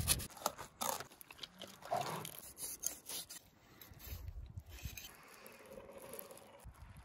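Raw sturgeon being worked by hand: short clicks and tearing sounds in the first few seconds as the skin is pulled off, then soft, faint noise as chunks of fish are pushed onto a metal skewer.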